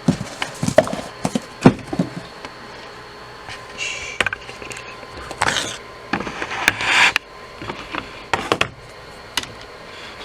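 Objects being handled and set down: a run of irregular knocks and clicks, then a few short scraping or rustling sounds about midway.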